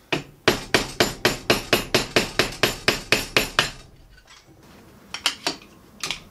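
A hammer rapidly tapping a screwdriver wedged beside the bottom die of a hydraulic hole punch, steel on steel, to drive the tight die out: about five sharp strikes a second for some three and a half seconds, then a few single knocks near the end.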